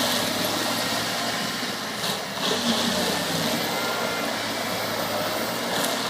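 Excavator-mounted forestry mulcher and its power pack running steadily, a continuous loud machine noise that dips briefly about two seconds in.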